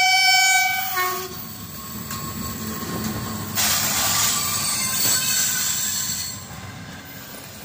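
EP1M electric locomotive's horn sounding a steady chord that cuts off about a second in, then the locomotive and its passenger coaches running past close by, a steady rumble of wheels on the rails with a louder hiss while the locomotive body goes by.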